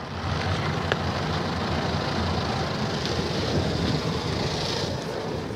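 Side brushes of a Mark VII SoftWash XT automatic car wash spinning and scrubbing against the car, heard from inside the cabin as a steady low, noisy scrubbing with water hiss.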